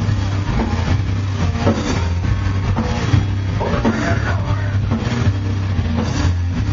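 Live heavy metal band playing loudly: distorted electric guitars and bass over a drum kit, in a dense, continuous wall of sound.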